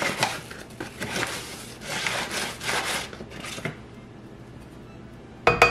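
Dry scraping and rubbing strokes of a kitchen utensil against a container for about three and a half seconds, then a single sharp clink near the end.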